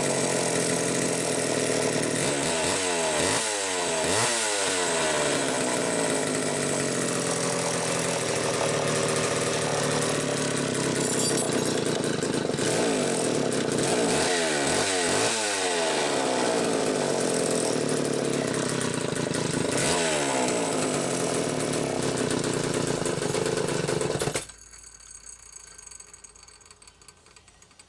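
Homelite 2100S two-stroke chainsaw running, revved up and down several times, then shut off about 24 seconds in.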